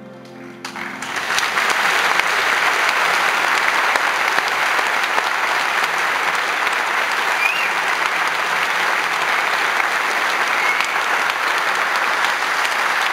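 The last note of the music dies away within the first second. Then a concert hall audience breaks into applause, which builds over about a second and holds steady.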